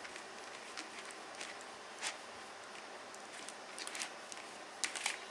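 Faint handling sounds: macrame cord and glass beads rustling and clicking softly as a knotted bead net is worked down over a ball. There are a few short clicks, about two seconds in and again around four to five seconds in, over a steady low hiss.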